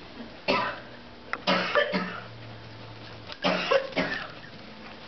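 Small dog giving three short, rough barks, the second and third longer than the first.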